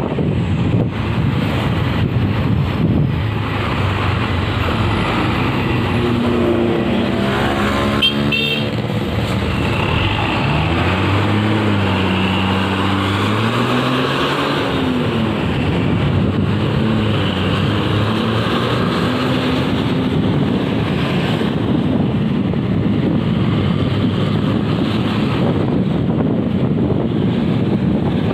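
Wind and road noise from a moving vehicle on a road. In the middle a pitched vehicle tone rises and falls several times over several seconds.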